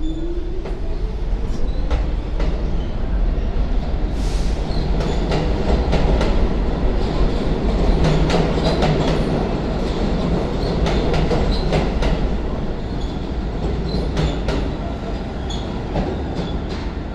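New York City subway train running: a steady rumble with repeated clicks of the wheels over the rails, and a whine rising in pitch over the first couple of seconds.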